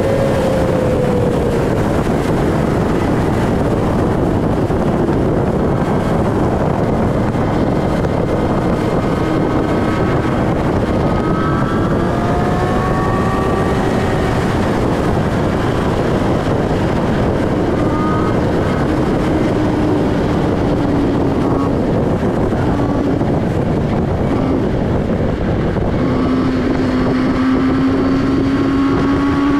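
Motorcycle engine running on the move, its pitch rising and falling with the throttle under a steady rush of wind noise on the microphone.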